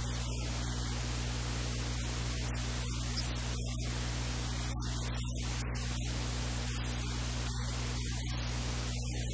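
Steady electrical hiss with a low mains hum underneath, unchanging throughout.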